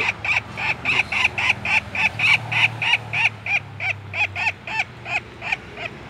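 Red-backed flameback woodpecker calling: a long, rapid rattle of sharp repeated notes, about five a second, that slows and fades near the end.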